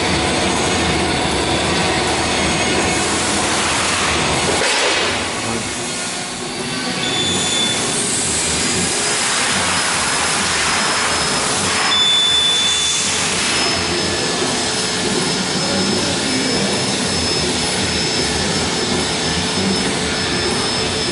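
LDPE bag sealing and cutting machine running: a loud, steady mechanical noise with faint high whistles, dipping briefly about five seconds in.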